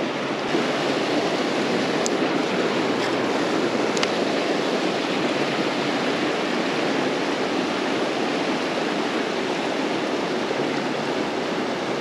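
Shallow river flowing fast over a rocky riffle, a steady, even rush of water close to the microphone.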